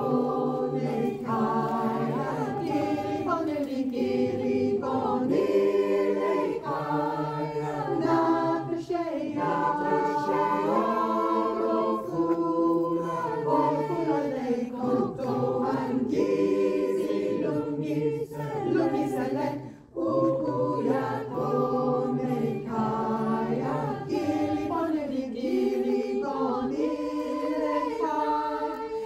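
Mixed choir of men's and women's voices singing unaccompanied in several-part harmony, with a short break between phrases about two-thirds of the way through.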